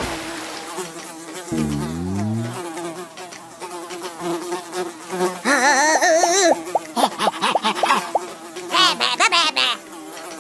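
Cartoon sound effect of a swarm of bees buzzing: a steady drone, with louder wavering buzzes rising and falling over it in the middle and near the end.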